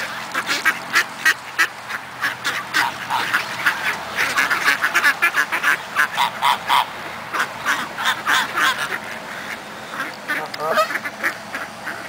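A flock of mallard ducks quacking, many short calls in quick succession and overlapping, with goose honks joining in near the end.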